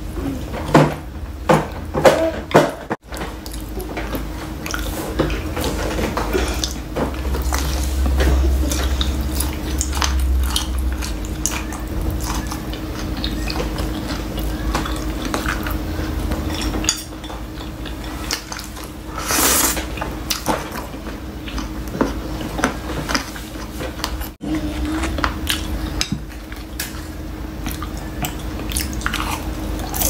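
Close-miked eating: chopsticks clicking and scraping against a glass plate in many short, irregular taps, mixed with wet chewing of saucy boneless chicken feet, over a steady low hum.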